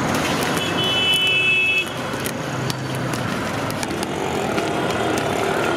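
Road traffic noise with a vehicle horn sounding once, about a second long, starting about half a second in, over scattered sharp clicks.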